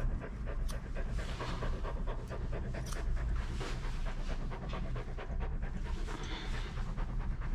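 A doodle dog panting steadily, with a few sharp snips of grooming scissors as the fur on its ears is trimmed.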